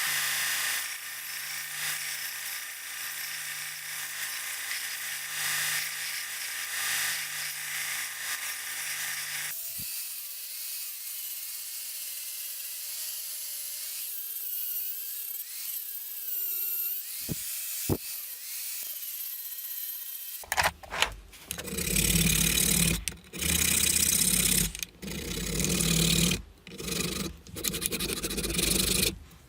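A small electric power tool runs steadily with a low hum, then gives way to a thinner, higher whirr about a third of the way in. About two-thirds of the way in come repeated rubbing strokes of hand filing or sanding on the hammer, each a second or two long with short pauses between them.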